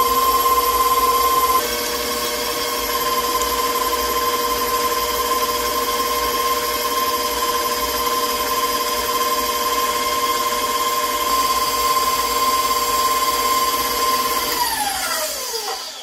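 Electric stand mixer motor running steadily with a high whine as its flat beater churns cookie dough in a steel bowl; it gets a little quieter about a second and a half in, and near the end the whine falls in pitch as the motor is switched off and winds down.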